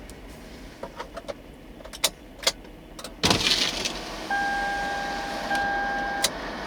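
CSX freight train rolling past: scattered sharp clicks and clunks, then a sudden rush of louder noise about three seconds in, and a steady whining tone for about two seconds near the end.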